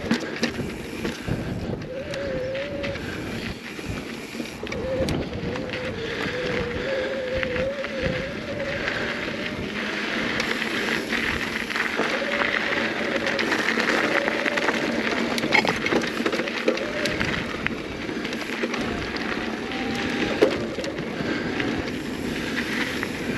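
Mountain bike rolling over dirt and rock singletrack: tyre noise with rattles and knocks from the bike over bumps. A wavering buzz from the rear freehub comes and goes as the rider coasts.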